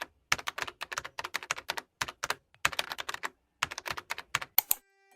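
Typing on a computer keyboard: quick runs of keystrokes with short pauses between them, stopping shortly before the end.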